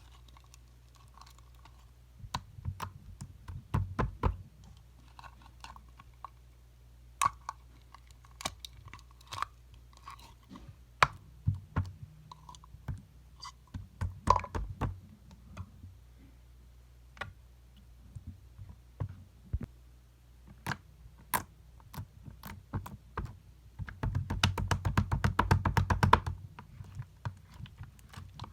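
Slime being played with by hand: scattered sticky clicks and pops as it is pressed and pulled, with a dense run of crackling for about two seconds near the end.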